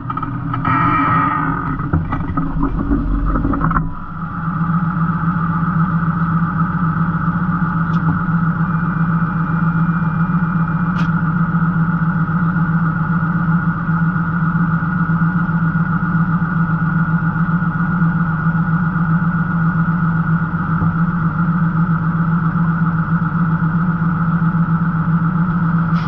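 Tractor engine running steadily with the plough lifted. It sounds uneven and changing for the first few seconds, then settles into a constant hum about four seconds in.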